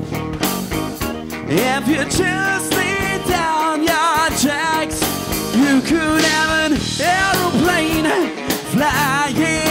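A live rock band playing: drum kit and electric bass, with a wavering lead line held over them.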